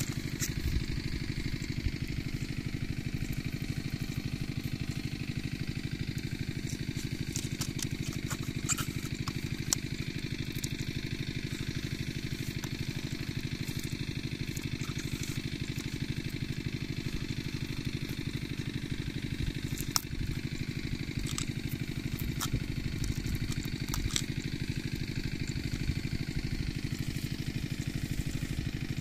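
A small engine running steadily, with a few light clicks and knocks over it.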